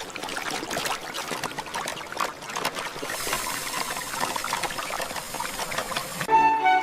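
Water trickling and splashing, with scattered small clicks and knocks. Music comes in near the end.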